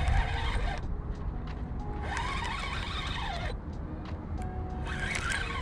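Lofi background music with steady, held notes. Three short stretches of rasping, hissy noise break in: at the start, in the middle, and near the end.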